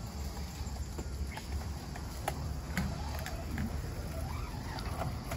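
Outdoor ambience: a steady low rumble with scattered faint clicks and ticks, and a few faint wavering pitched sounds about four seconds in.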